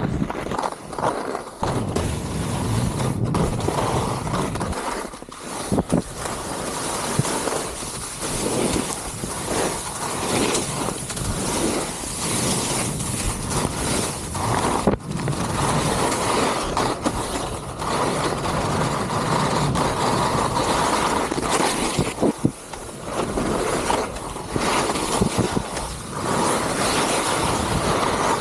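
Touring skis sliding and scraping over wind-packed snow on a fast downhill run, the noise swelling and easing with each turn, mixed with wind rushing over the helmet-mounted microphone.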